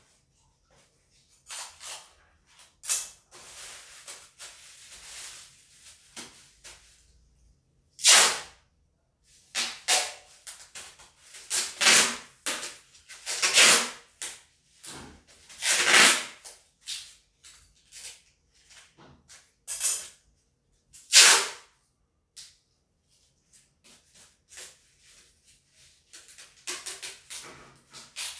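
Packing tape pulled off the roll in a series of loud rips, about eight with pauses between, as a parcel is taped up, with softer handling noises in between.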